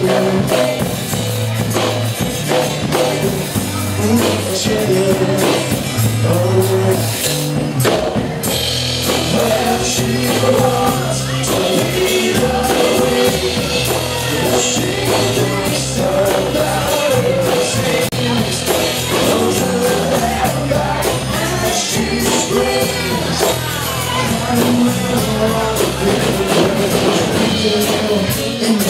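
Live rock cover band playing: acoustic guitar, electric bass and drum kit with cymbals, with a sung melody over the top.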